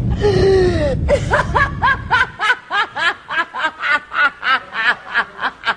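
A woman's exaggerated cackling laugh. It opens with a shrill, wavering cry that falls in pitch, then becomes a steady run of quick 'ha' bursts, about three a second. A low background rumble under the first two seconds cuts off.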